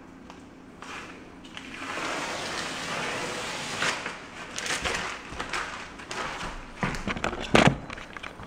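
Rustling and scrubbing noise from work on a tile floor, followed by a string of knocks and one loud thump about seven and a half seconds in, as someone gets up and handles the camera.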